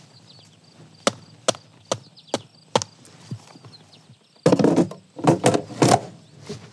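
Sharp knocks, about five in two seconds, then a louder jumble of thumps and rustling near the end: shoes being handled and a man moving through an airliner's over-wing emergency exit opening.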